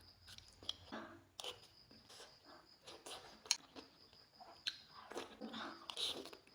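Close-up mukbang eating sounds: satay being bitten and chewed, with irregular soft smacks and sharp clicks.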